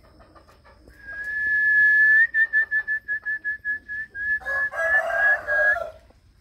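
A high, pure whistle starting about a second in and held steady. It then breaks into a rapid trill of about five or six pulses a second, turns fuller and warbling near the end, and stops suddenly.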